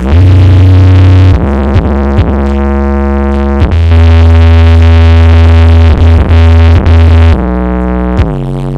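Very loud electronic music played through a large outdoor sound system: long held synthesizer notes over a heavy deep bass, with the pitch sliding down between notes a few times and dropping lower near the end.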